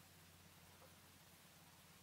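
Near silence: a faint steady low hum under a flat hiss.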